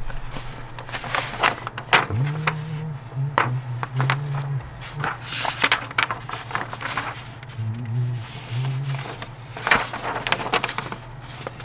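Paper rustling and crackling as a model kit's instruction manual is handled and its pages turned, in irregular crisp bursts. A low hum sounds twice in between.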